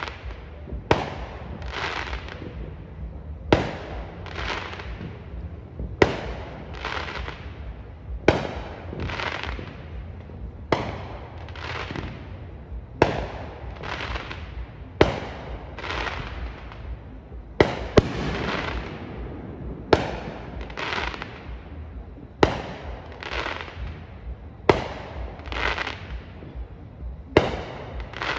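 Aerial fireworks going off, a sharp bang about every two and a half seconds, each followed by a fading rush of noise.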